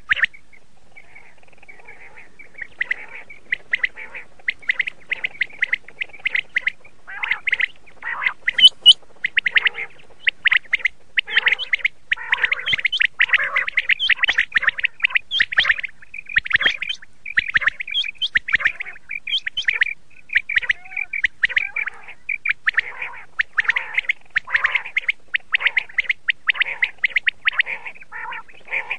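Quail calling: a rapid, dense series of short chirping calls that barely pause, with a brief lull about a second in.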